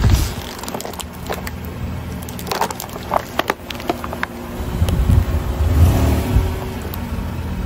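A car tyre rolling slowly over plastic objects on asphalt, crushing them with crackles and sharp snaps. A louder low rumble with more snaps comes about five to six and a half seconds in as the tyre goes over a plastic tube.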